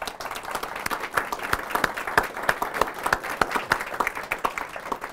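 Audience applauding: many hands clapping together, starting abruptly and thinning out near the end.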